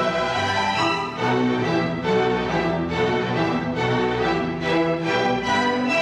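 String chamber orchestra playing with a solo double bass, in a lively passage punctuated by short accented chords roughly once a second.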